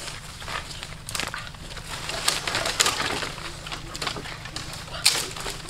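Dry sticks and brushwood snapping and crackling, with leaves rustling, as branches are broken and pulled out of the undergrowth by hand. The snaps come in clusters about two seconds in and again near the end.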